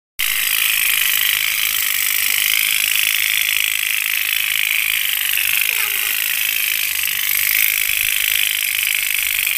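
Tin pop-pop toy steam boats running on water, their candle-heated engines making a steady high buzz that wavers slightly in pitch.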